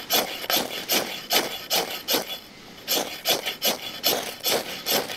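Spine of a drop-forged Cold Steel Survivalist knife scraped repeatedly down a ferro rod: short rasping strokes about three a second, with a brief pause a little past the middle. The strikes throw plenty of sparks even with light pressure.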